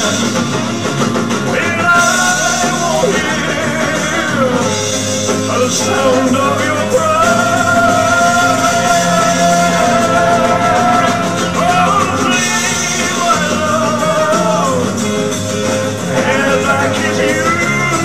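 A man singing a slow ballad into a handheld microphone over a karaoke-style backing track, with long held notes.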